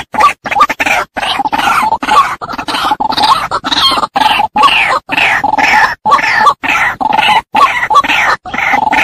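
Female white-breasted waterhen giving its harsh, repeated croaking 'kru-ak' calls, about two a second, with no break.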